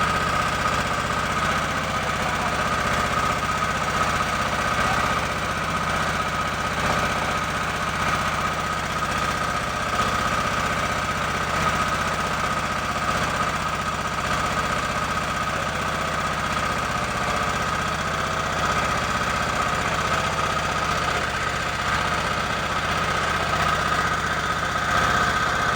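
Fishing boat's engine running steadily, an even knocking drone with a constant high whine over it.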